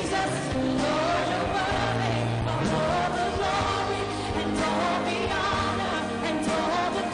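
Live concert music: a female solo singer holding a wavering, vibrato melody line over sustained orchestral backing.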